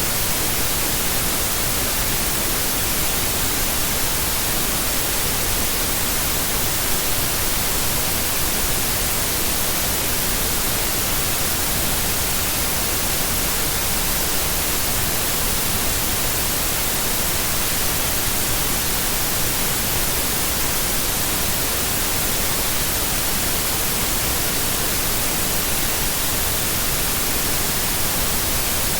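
Steady white noise, an even hiss with no breaks or changes in level.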